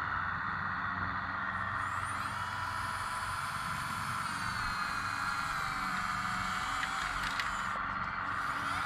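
Whine of a small electric drive on a radio-controlled AUSA site dumper as it tips its skip. The whine rises in pitch about two seconds in, then holds and shifts slightly as the skip lifts.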